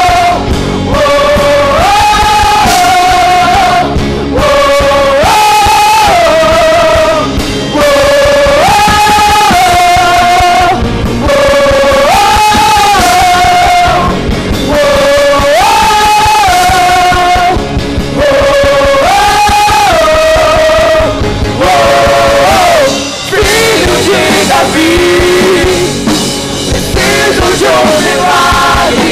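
Live worship rock band playing loud, with drums, cymbals and guitars. A short high rise-and-fall phrase repeats about every two seconds, then breaks off about 23 seconds in into a looser passage.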